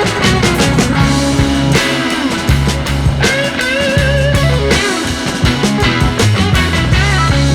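Background rock music with guitar, bass and drums keeping a steady beat.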